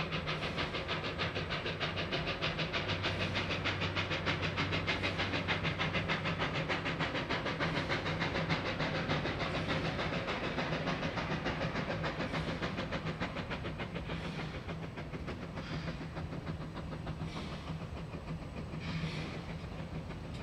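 Puffing Billy NA class narrow-gauge steam locomotive working as it approaches with a train, its exhaust giving rapid, even chuffs that soften and lose their beat about two-thirds of the way through.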